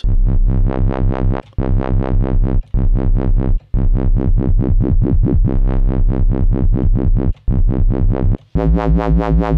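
Dubstep wobble bass from a synthesizer sampler patch: a hybrid square-sawtooth wave through a bandpass filter whose cutoff an eighth-note LFO sweeps, pulsing about four to five times a second. Several held low notes glide into one another while the filter's cutoff and resonance are turned up, and the tone turns brighter near the end.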